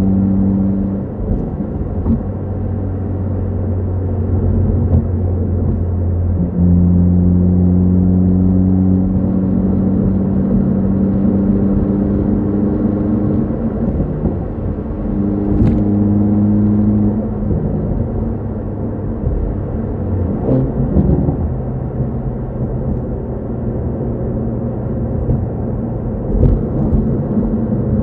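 Hyundai Veloster N's turbocharged 2.0-litre four-cylinder droning from inside the cabin at highway speed, over road noise. Its pitch holds steady and then steps a few times as throttle and gear change, with a few brief clicks.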